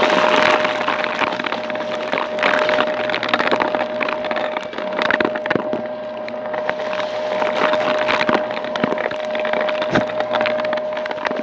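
Stick vacuum running on carpet with a steady motor whine, its floor head sucking up a spilled granular mess with a constant crackle and rattle of debris pulled through the head.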